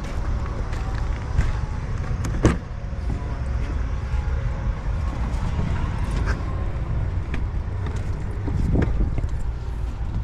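Low steady rumble of an idling engine, with one sharp clunk about two and a half seconds in.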